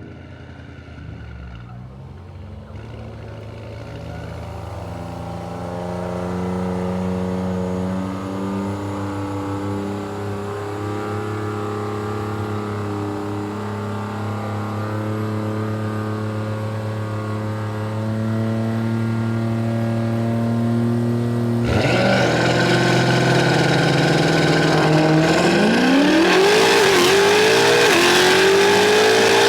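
Tuned BMW M5's twin-turbo V8 held at steady revs, then launching hard about 22 seconds in and accelerating, its pitch climbing through the gears with short dips at each shift.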